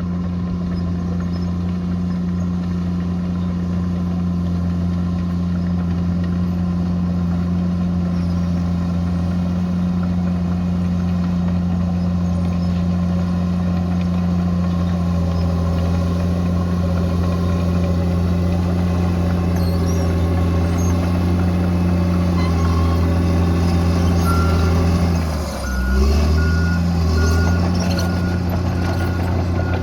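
Bulldozer's heavy diesel engine running steadily under load. Near the end its note dips and wavers for a moment, and a reversing alarm beeps repeatedly over the last few seconds.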